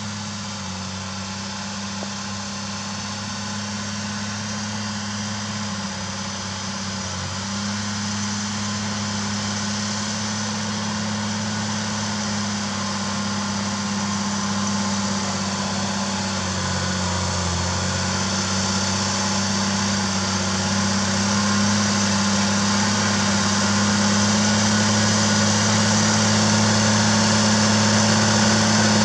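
Zetor Crystal tractor's diesel engine running steadily under load while pulling a subsoiler, growing gradually louder as it approaches. Its pitch dips briefly twice.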